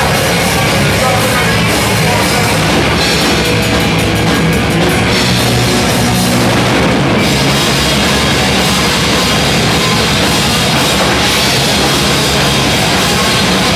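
Loud rock music with a drum kit, playing without a break.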